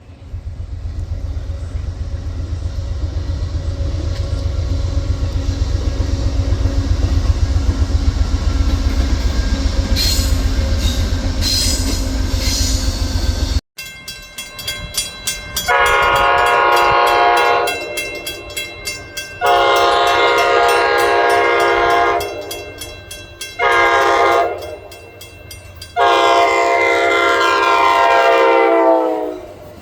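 Passenger train's deep rumble going by, then, after a cut, a multi-tone train horn sounding the grade-crossing signal: long, long, short, long, the last blast dropping in pitch as the train passes.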